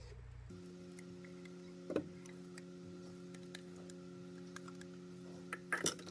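A plastic blender jar and a silicone spatula tapping and scraping against a stainless steel saucepan as thick ground peanut paste is knocked and scraped out: scattered light ticks, one sharper knock about two seconds in and a flurry of clicks near the end. A steady low hum sets in about half a second in.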